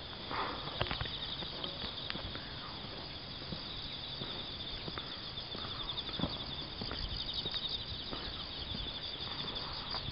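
Footsteps on a wet paved road, with a steady, high, rapidly pulsing chirring of insects behind them.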